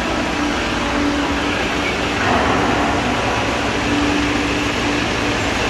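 Steady hum and rush of running machinery, with a low drone that fades in and out.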